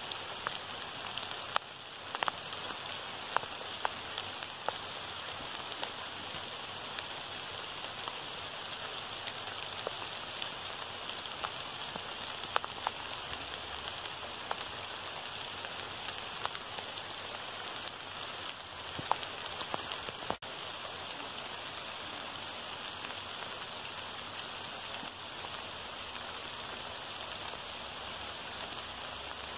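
Steady rain falling, a constant hiss with occasional sharper ticks of single drops landing close by.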